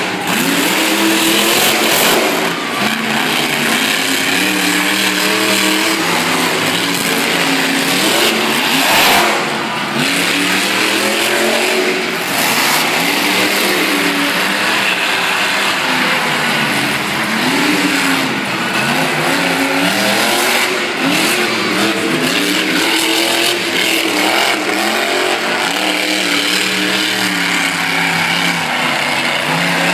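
Monster truck engines running loud, revving up and down again and again as the trucks drive, with a brief louder burst about nine seconds in.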